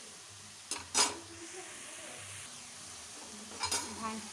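Shredded cabbage sizzling faintly in hot oil in a nonstick kadai, with a steel spatula knocking against the pan twice about a second in and again near the end.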